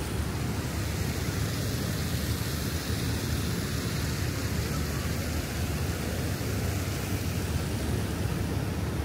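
Steady city park ambience: an even rushing noise with a heavy low rumble and no distinct events.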